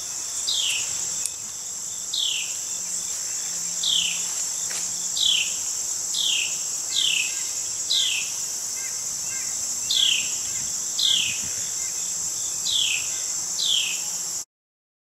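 Outdoor insect chorus: a steady, high-pitched drone. Over it, a bird repeats a short, downward-slurred chirp about once a second. The sound cuts off suddenly near the end.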